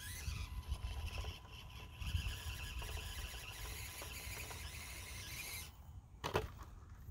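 Axial SCX24 micro crawler's small electric motor and gears whining as it climbs a steep rock face, stopping sharply a little before the end. Just after it stops comes a brief sharp squeak that falls in pitch.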